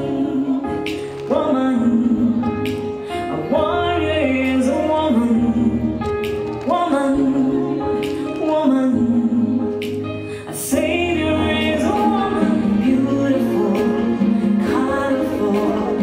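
Song with a woman singing over bass and drums, playing as dance music.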